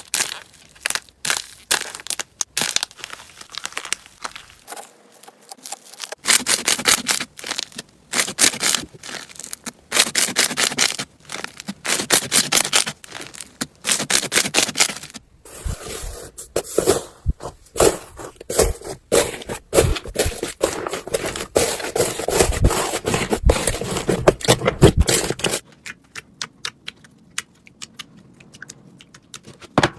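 Slime being squeezed and pressed by hand, giving dense crackling, popping and crunching, in short clips that change abruptly several times; the last few seconds are quieter.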